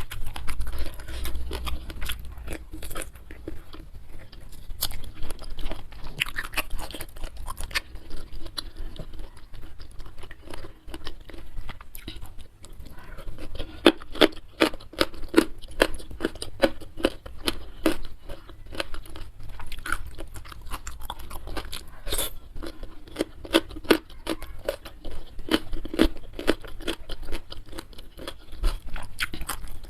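A person chewing and crunching mouthfuls of food close to the microphone, with a steady run of quick, irregular mouth clicks that grow denser through the middle.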